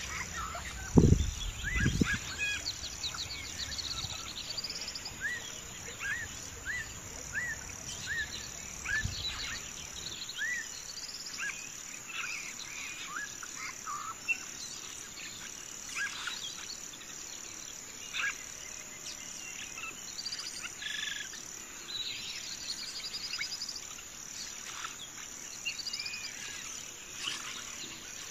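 Birds chirping in short repeated calls and quick trills over a steady high insect drone. Two low thumps come about one and two seconds in.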